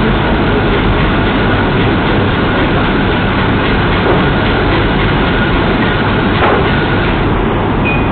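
Steady, loud hiss and rumble of room noise heard through a security camera's microphone, with a faint knock about six and a half seconds in.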